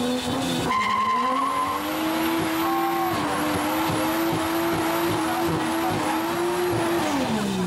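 Lowered Toyota sedan doing a burnout: the engine is revved up and held at high revs while the rear tyres spin and squeal on the pavement, then the revs drop away near the end.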